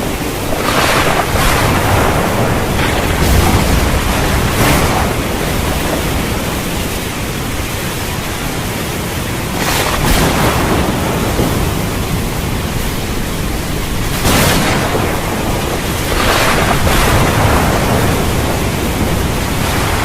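Heavy rain: a loud, steady hiss that swells in brief surges every few seconds.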